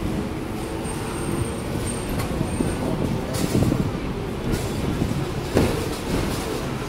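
Hong Kong double-decker electric tram running along its track, heard on board: a steady rumble and rattle of the car body and wheels on the rails, with several sharp clacks, the loudest about five and a half seconds in.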